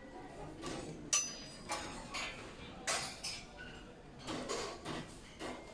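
A metal-framed tealight holder with glass cups and other metal and glass decor items clinking and knocking against a wire shelf as they are handled. The sharpest clink comes about a second in, with a brief high ring, and further knocks follow around three seconds in and after four seconds.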